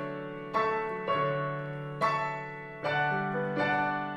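Digital piano playing a short instrumental passage of chords, about six struck in the space of four seconds, each ringing on and fading.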